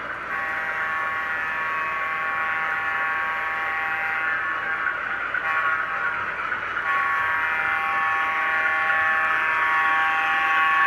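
Sound system of an MTH O-gauge model diesel locomotive blowing its multi-tone air horn in long held blasts, with two short breaks near the middle.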